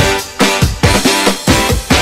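Music with a fast, driving drum beat.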